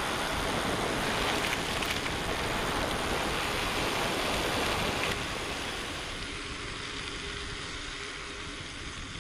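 Steady rushing noise of wind and tyres from a mountain-bike ride. It drops about five seconds in and then fades away.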